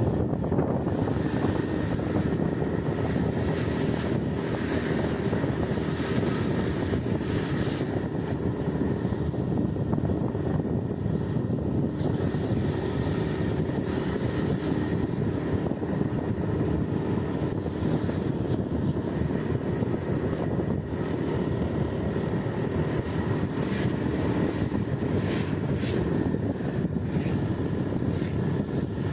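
Motorcycle being ridden at a steady cruise: the engine's even drone mixed with wind and road noise, with no change in speed.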